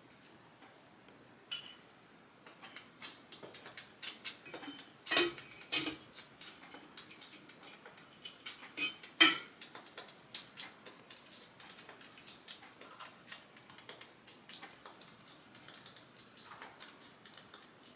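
Scattered clicks, taps and light metallic clinks of small hardware and tools being handled while fitting a ceiling fan, with louder clusters about five seconds and nine seconds in.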